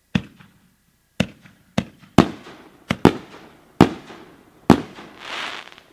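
Aerial fireworks going off: about eight sharp booms in quick succession, each with an echoing tail, then a rushing hiss that swells and fades near the end.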